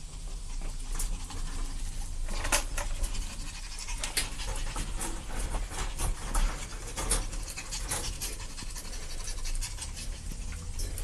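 Puppies panting and snuffling as they play-wrestle, with scattered clicks and scuffs that are busiest between about two and eight seconds in.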